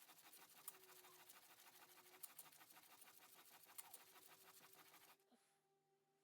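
Dry, scratchy rasping of an old jointer plane's steel blade worked against a surface, continuous for about five seconds and then stopping abruptly.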